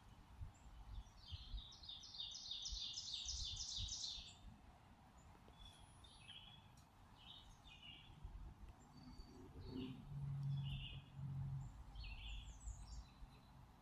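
Woodland birds singing: a fast, even trill of about fourteen high notes from about one to four seconds in, then scattered short chirps. A low hum comes in twice, briefly, about ten seconds in.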